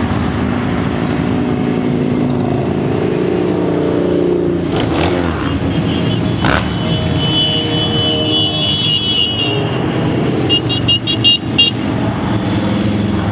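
A steady stream of cruiser motorcycles running past on a highway, their engines blending into a continuous drone that swells and fades as bikes pass. A horn sounds for a couple of seconds about eight seconds in, then several quick horn toots follow near the end.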